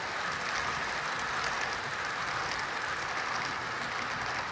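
HO scale model locomotive and its cars rolling on old brass track: a steady whir with faint fine clicks. The locomotive is running rough and slow, which the owner puts down to dirty track.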